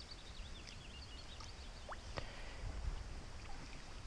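A songbird warbling over a low rumble of wind on the microphone, then a quick rising swish and a click about two seconds in as a fishing lure is cast out on rod and line.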